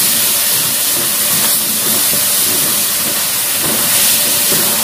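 Chicken and potato pieces sizzling in a hot wok with a little water added, a loud, steady hiss of steam while a spatula stirs them.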